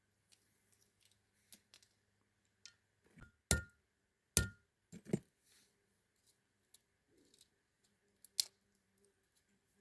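Cooking utensils and cookware handled by hand: scattered light clicks and clinks, with two loud knocks about three and a half and four and a half seconds in, and another near the end.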